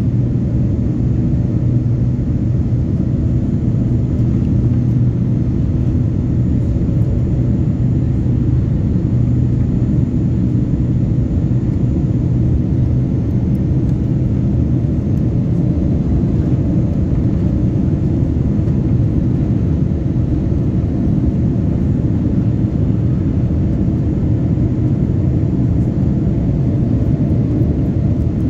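Boeing 787-9 cabin noise during the climb after take-off, heard inside the cabin over the wing: a steady low rumble of the engines and rushing air, with a few steady low hums underneath.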